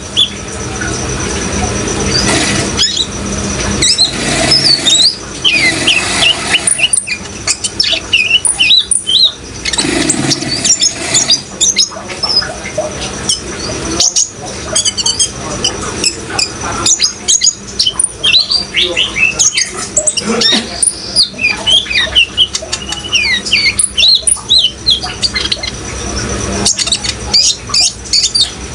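Purple-throated sunbird (kolibri ninja) singing a fast, continuous stream of high, thin chirps and twitters, over a steady rush of running water.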